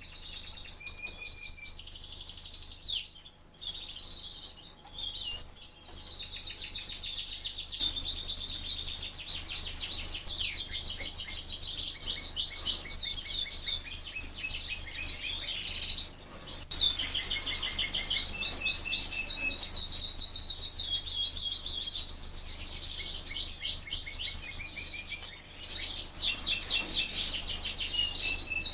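Fife Fancy canaries singing: fast, high-pitched trilled phrases and chirps that run almost without a break, with a few short pauses.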